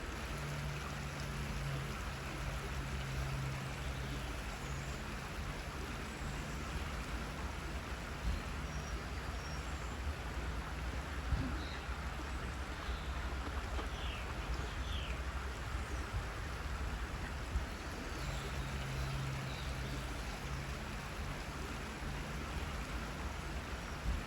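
Waterfall: steady rushing water, an even wash of noise throughout.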